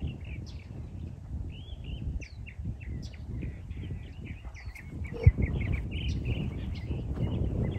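Several wild birds chirping and calling over a low rumble of footsteps and wind on the microphone, with one sharp thump a little after five seconds in.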